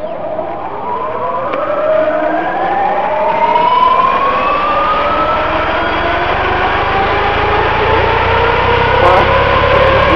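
Radio-controlled helicopter spooling up on the ground: the motor and main rotor whine, rising in pitch and growing louder over the first few seconds, then holding steady at low head speed.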